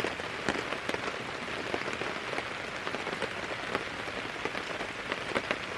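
Steady rain falling, with many individual drops ticking sharply on a nearby surface.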